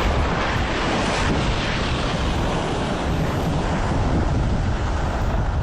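Wind buffeting the microphone: a steady rushing noise with a deep rumble underneath.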